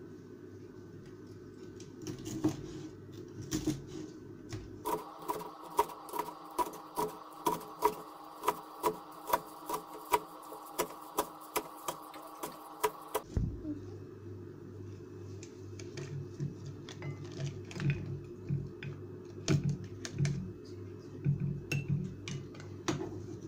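Knife chopping green garlic on a wooden cutting board: a quick, even run of knocks about two a second. A steady tone runs underneath for several seconds and cuts off suddenly. Lighter, scattered knocks follow.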